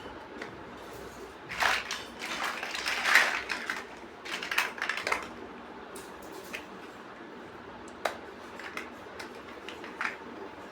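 Plastic building bricks clicking and rattling as they are handled: a run of clattering about two to five seconds in, then a few single sharp clicks.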